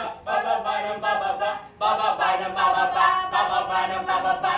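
A group of people singing together, a chorus of voices that breaks off briefly just under two seconds in and then carries on.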